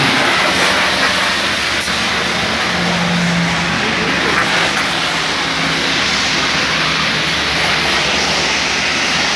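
Car-wash pressure washer running: a steady hiss of high-pressure water spray with a low pump hum underneath.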